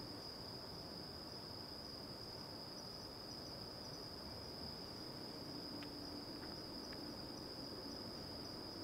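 Crickets trilling in a steady, unbroken high-pitched drone over faint background hiss.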